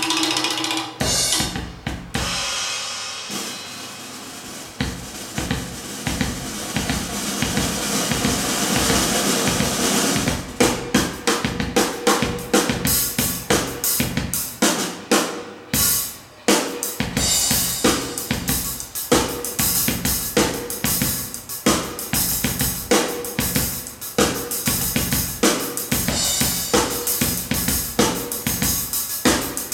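Drum kit recording played through Polk Audio RTi A3 bookshelf speakers: a cymbal-heavy wash at first, then a steady beat of kick, snare and hi-hat from about ten seconds in, with a brief break in the middle.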